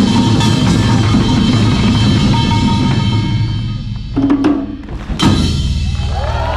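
Live percussion music: dense drumming with sharp wood-block-like strikes that breaks off about four seconds in, then a single loud hit and sliding held notes near the end.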